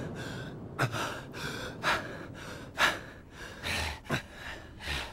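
A man panting hard, quick irregular gasping breaths roughly two a second, winded from a boxing sparring bout.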